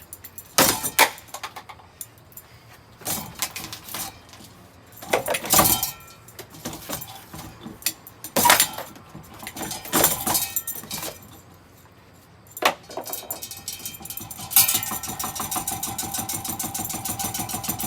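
A ceiling fan running on high being struck with one of its own blades: a string of irregular clattering crashes with a metallic rattle. About two-thirds of the way in, a steady, fast rattling starts and keeps going.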